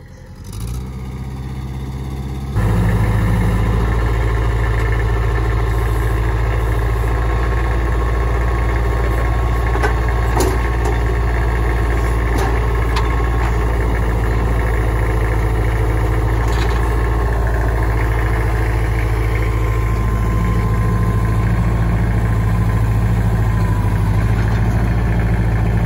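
Kubota tractor's diesel engine running steadily under load, working hard. It gets louder about two and a half seconds in, then holds an even pitch, with a few light knocks in the middle.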